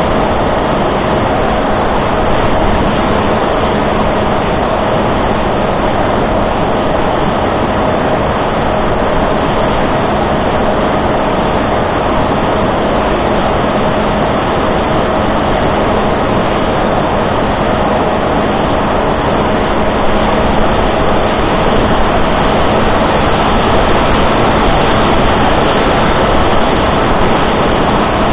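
The electric pusher motor and propeller of a Reptile S800 flying wing running steadily, picked up by the camera on board. It makes a steady drone of one pitch over a loud rushing noise, a little louder from about twenty seconds in.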